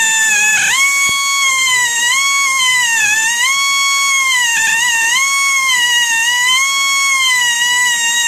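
High-speed rotary tool with a grinding stick cutting into horn: a steady high-pitched whine that dips in pitch again and again, about once a second, as the bit is pressed into the material and eased off.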